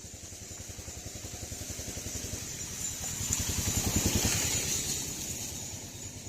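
A small engine with a rapid, even beat passes by, growing louder to its loudest about four seconds in and then fading away.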